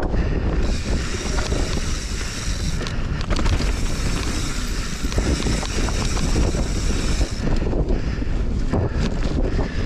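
Wind buffeting a mountain bike's camera microphone during a fast descent, over the tyres running on a dirt singletrack and the bike rattling and knocking over small bumps.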